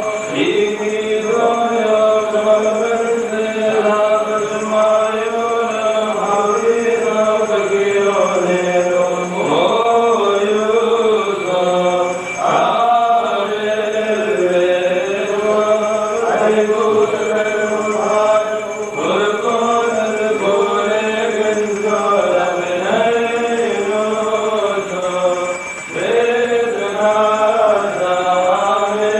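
Liturgical chanting of the Holy Qurbana: voices singing a slow chant melody in long, held phrases, with only brief pauses for breath.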